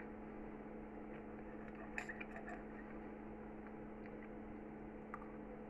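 A few faint clinks of a metal knife and fork against a china plate, a small cluster about two seconds in and one near the end, over a steady low electrical hum.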